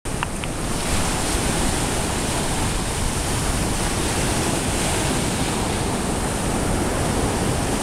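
Ocean surf breaking and washing in, a steady rushing roar of the sea.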